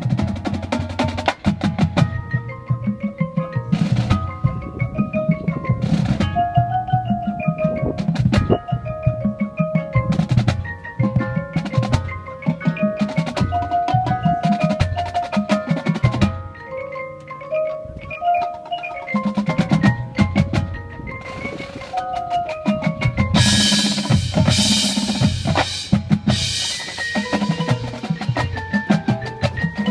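Drumline with front ensemble playing a piece: marimbas and other mallet instruments carry a melody over snare, tenor and bass drum hits. About 23 seconds in comes a loud, bright crash of metal percussion that rings for a few seconds.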